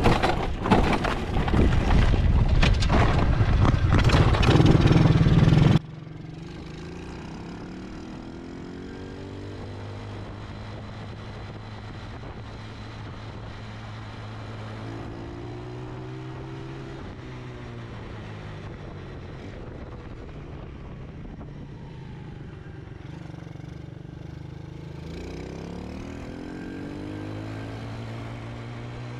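Loud wind buffeting on the microphone for about the first six seconds, cutting off suddenly. Then the Tao/Coolster 125cc ATV's small single-cylinder engine running under way, its pitch rising several times as it accelerates, with a freshly replaced clutch.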